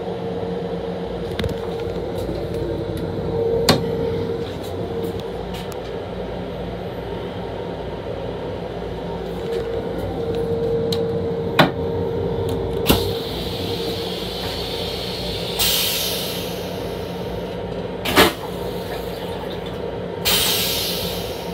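An M7 commuter railcar's toilet being used and flushed: sharp clicks and knocks from the lid and flush control, then two short hissing rushes of the flush in the second half, each fading away. Under it all runs the railcar's steady hum.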